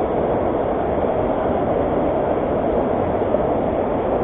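Fast-flowing river water rushing in a steady, loud, even noise.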